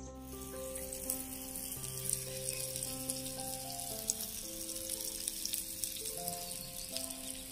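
Spice-coated whole fish sizzling in hot oil in a miniature frying pan, with scattered small pops, starting a moment in.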